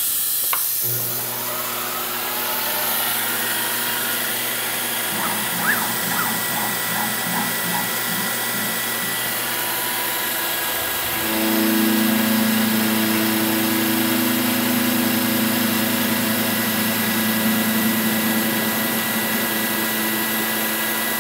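Milling machine spindle running while an end mill takes a final finishing cut on a small metal part, over the hiss of a mist coolant spray. The machine's tone shifts and grows louder about eleven seconds in.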